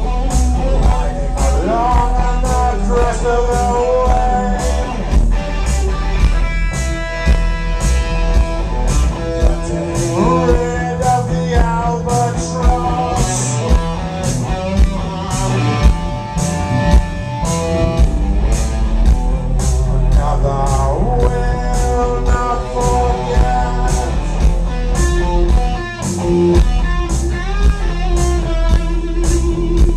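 Live rock band playing a post-punk song: a steady drum beat of about two hits a second under a deep, repeating bass line and electric guitar, with a man's singing voice over the top.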